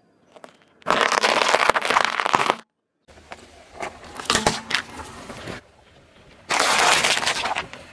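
A car tyre slowly rolling over and crushing things in three separate takes. First a heap of chocolate-coated balls crunches for about a second and a half. Then a plastic toy car cracks with sharp snaps, and near the end a plastic punnet of cherry tomatoes crackles and squashes.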